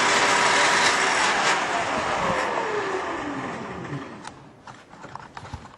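Shopsmith table saw with a dado blade running, then switched off and coasting down, its whine falling steadily in pitch and fading over a few seconds. A few light clicks follow near the end.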